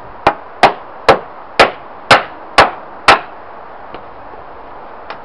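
A claw hammer striking the timber TV cabinet: seven sharp blows in a steady rhythm of about two a second, stopping a little after three seconds in.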